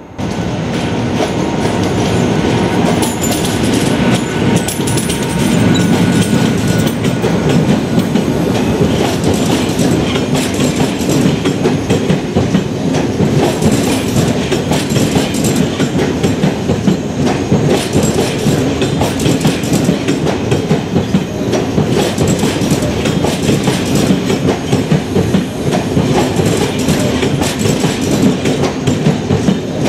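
Passenger coaches of a train rolling past close by. The wheels give a continuous rumble and a dense run of clicks and clatter over the rail joints, starting abruptly.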